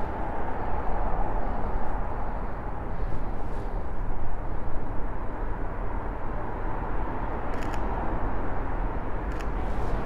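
Wind rumbling on the microphone over steady outdoor city ambience, with a camera shutter clicking twice near the end.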